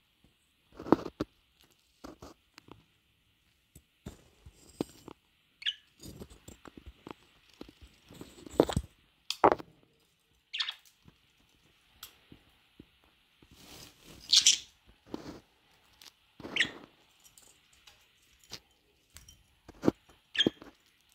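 Pet budgerigars making several brief high chirps, one falling sharply in pitch, amid scattered small clicks and taps of beaks and feet on perches and cage bars.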